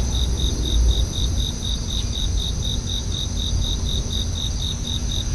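Crickets chirping in a pre-dawn chorus: one insect pulses evenly at about five chirps a second, over steady higher-pitched trills. A low steady rumble runs underneath.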